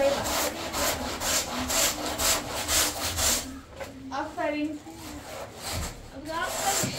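Stiff broom scraping over a rough mud-plastered wall in repeated up-and-down strokes, about two a second, sweeping off dust and dirt. The strokes ease briefly a little past halfway, then carry on.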